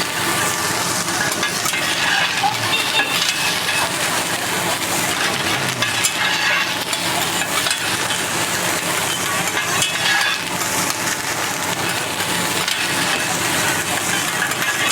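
Fried rice sizzling steadily on a hot teppanyaki iron griddle, with metal spatulas scraping and clinking against the plate.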